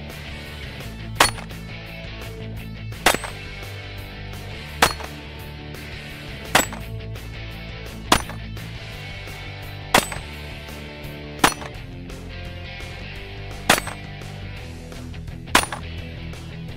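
Pistol shots, nine single shots about every one and a half to two seconds, over background guitar music.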